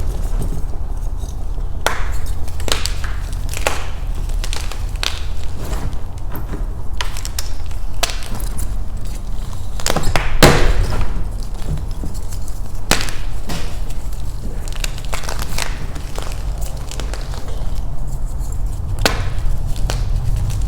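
Blocks of Beasty gym chalk being crushed and snapped in the hands, a run of irregular crunches and sharp cracks, the loudest about ten seconds in, over a steady low hum.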